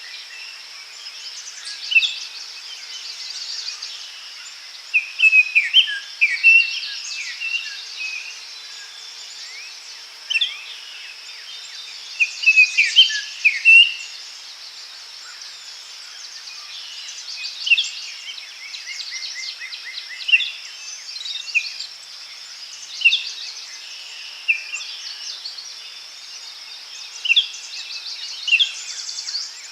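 Forest ambience: several birds giving short chirping calls in clusters every few seconds, over a steady high-pitched drone of insects.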